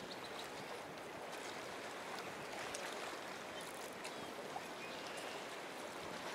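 Steady rush and lapping of river water flowing through the shallows.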